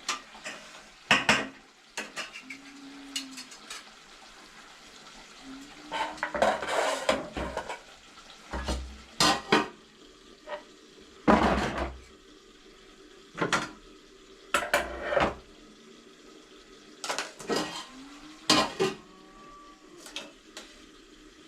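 Metal spoon clanking and scraping against a cooking pot and dishes in a string of irregular, separate knocks, as the thick curry is stirred and dished up.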